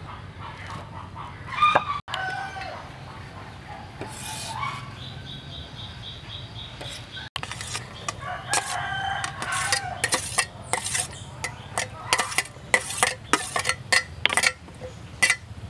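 Chickens clucking and a rooster crowing in the background. Through the second half comes a rapid run of clattering knocks as diced vegetables are pushed off a metal tray into a clay bowl.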